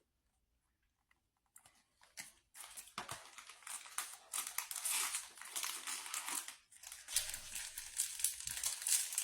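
Plastic snack wrapper crinkling and crackling as it is handled and opened, starting about two seconds in and going on irregularly with many quick crackles.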